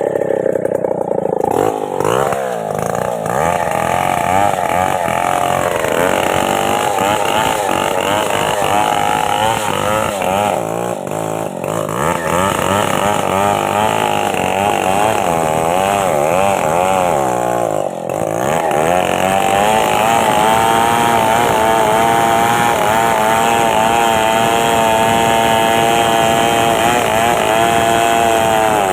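Stihl two-stroke chainsaw running, its engine pitch rising and falling repeatedly as the throttle is worked, then held steady at high revs for the last third.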